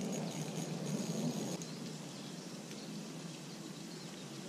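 Steady outdoor hiss with a few faint rustles and ticks in the first second and a half, then unchanged hiss.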